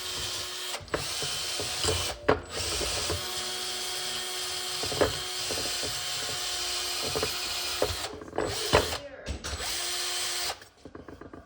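Handheld rotary tool running steadily with a motor whine, working on metal engine parts. It dips briefly a few times with sharp knocks as the bit meets the work, then shuts off about ten and a half seconds in.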